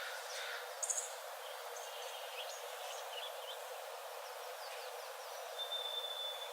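Forest birds calling: scattered short high chirps and trills, a sharp high call about a second in, and one long steady whistled note near the end, over a steady background hiss.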